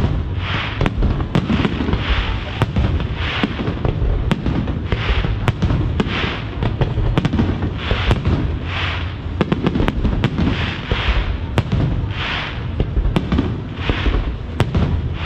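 Aerial fireworks shells bursting in rapid succession, a sharp bang every half second or so over a constant low rumble. Crackling bursts of stars come through about once a second.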